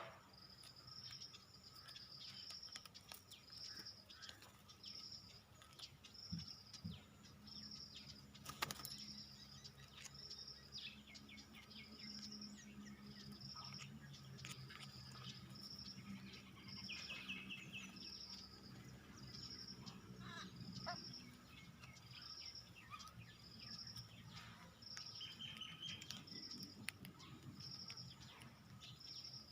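Small birds calling in alarm at a squirrel, faint: a short high note repeated about once a second, with scattered chirps and a brief trill about 17 seconds in.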